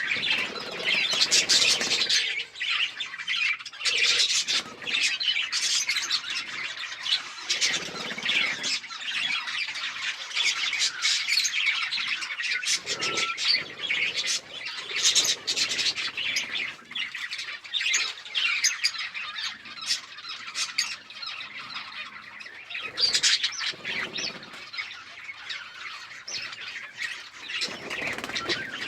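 A group of budgerigars chattering and chirping without pause, a dense overlapping warble broken by sharper squawks.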